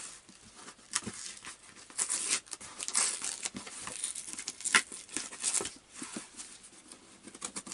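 Hands tearing open a small cardboard mailer box, with ripping and crinkling of cardboard and packaging coming in irregular bursts.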